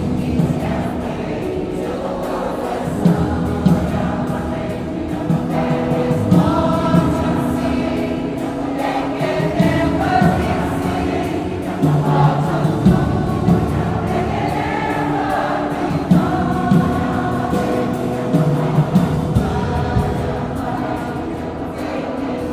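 A choir singing in harmony with instrumental accompaniment, with repeated low beats under the voices.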